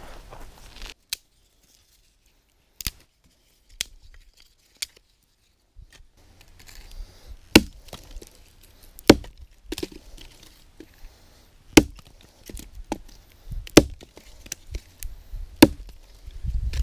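Gransfors Bruks carpenter's axe chopping into a fallen log, a dozen or more sharp chops. They are spaced out at first, then come about once a second.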